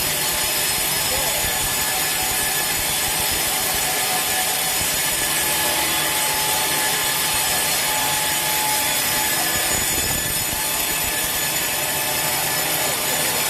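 Sawmill saw cutting through a large teak log, a steady, unbroken hissing rasp of blade in wood.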